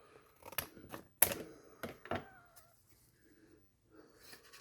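Knife sheaths being handled and cut to size: a string of sharp clicks and snips over the first two seconds or so, with a brief faint squeak, then a few soft taps near the end.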